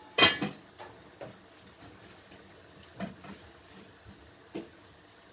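A sharp metallic clank with a brief ring about a quarter-second in, from the stainless steel pan or a utensil against it, then a few faint scattered ticks as the spinach cooks in the pan.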